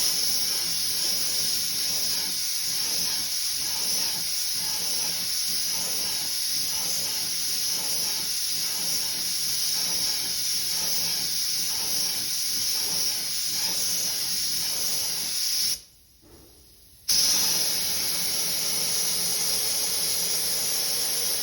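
Compressed-air paint spray gun spraying single-stage yellow paint onto wheel spokes: a steady hiss. It stops for about a second when the trigger is released, about 16 seconds in, then starts again and cuts off at the end.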